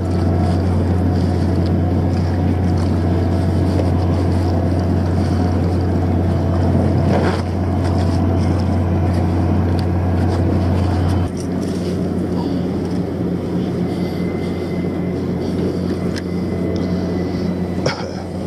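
Steady low drone of a boat's engine running. Its deepest hum drops away suddenly about eleven seconds in.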